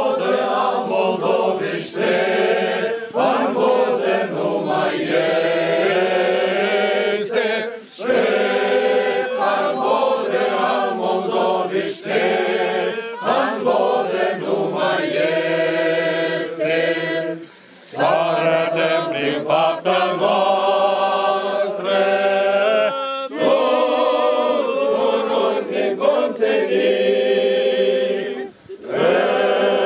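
A group of voices singing a song together, in long phrases each ending in a short pause for breath.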